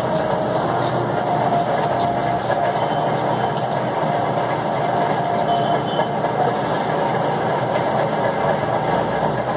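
Steady mechanical running noise, like a motor, with a faint wavering whine over it.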